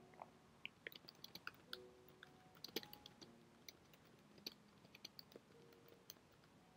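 Computer keyboard typing: faint keystroke clicks in quick, uneven runs with short pauses between them.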